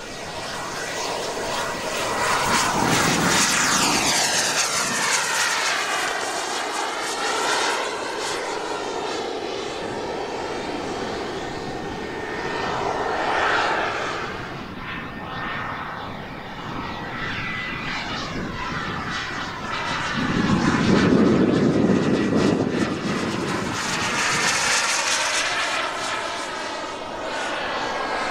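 Engine of a large radio-controlled model jet, a scale de Havilland Vampire, running at power through its take-off and climb-out. It makes a continuous rushing jet whine that swells and fades as the model passes, loudest about three-quarters of the way through.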